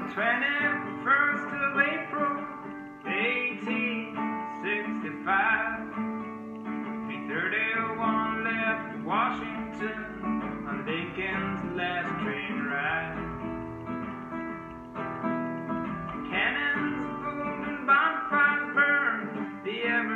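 A man singing a folk song while strumming a classical guitar.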